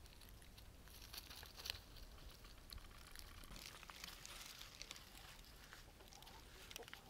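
Near silence with faint scattered crackling and rustling in dry leaves and grass.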